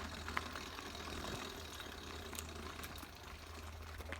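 An 80cc motorized bicycle's two-stroke engine idles steadily with a low, even hum, a few faint clicks over it.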